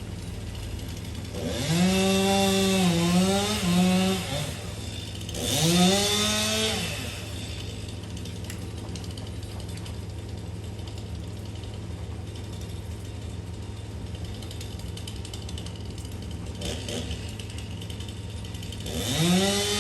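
Two-stroke chainsaw revving up three times, its pitch rising and holding for a second or two each time, and dropping back to a low idle in between.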